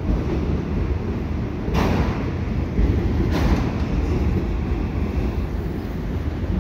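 Empty autorack freight cars rolling over a steel girder railway bridge overhead: a steady low rumble, with a louder wheel clatter every couple of seconds.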